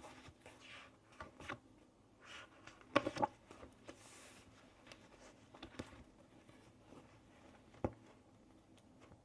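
Journal pages and paper collage materials being handled: soft rustling with scattered light taps and clicks, a cluster of crisp clicks about three seconds in and a single sharp tap near the end.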